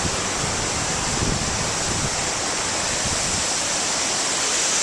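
Strong tropical-storm wind blowing across the microphone: a steady rushing noise with a few low buffeting thumps.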